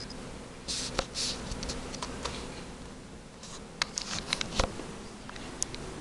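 Handling noise from a camera being moved: scattered rustles and sharp clicks, clustered about a second in and again around four seconds in, over a steady low hum.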